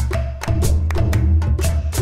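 Instrumental music from a children's song, with a steady percussion beat of about three strikes a second over a bass line.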